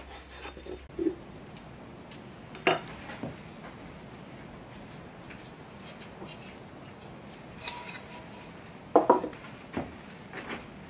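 Scattered light clinks and knocks of kitchen utensils and tableware being handled, the loudest a short clatter about nine seconds in.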